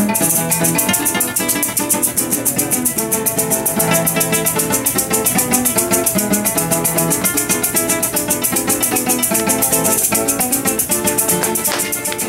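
Live llanero joropo music: cuatros strummed in a quick, steady rhythm with maracas shaken alongside. The maracas come in right at the start.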